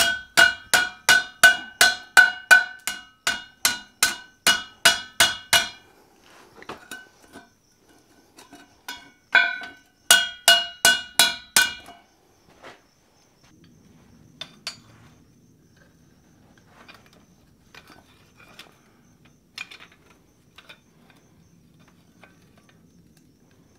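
Blacksmith's hand hammer striking a hot iron ring on a steel cone mandrel, about three ringing blows a second for roughly six seconds, then a second short run of blows around ten seconds in, truing the ring round. After that only faint clinks of metal.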